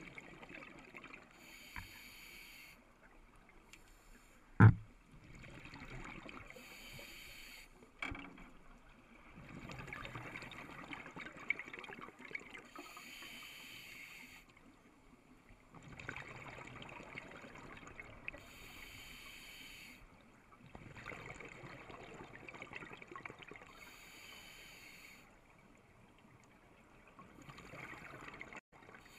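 Scuba regulator breathing underwater: five bubbly exhale bursts, one about every five to six seconds, with quieter inhales between them. One sharp knock comes about five seconds in.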